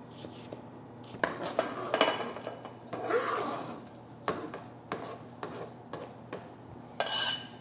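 Kitchen prep clatter: a knife and dishes knocking and being set down on a work surface, with a scraping sound about three seconds in and a ringing metallic clink near the end.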